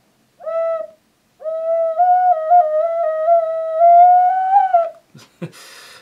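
Blue ceramic Songbird Sonoro alto C ocarina blown by a first-time player: a short note, then a held note of about three and a half seconds. The held note wobbles between neighbouring pitches and drifts slightly sharp near the end.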